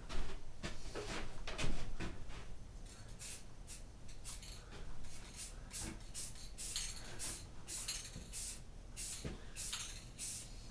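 Aerosol spray paint can spraying blue paint onto bike forks in short, repeated hissing bursts, about a dozen quick passes starting a few seconds in. A few light knocks come before them.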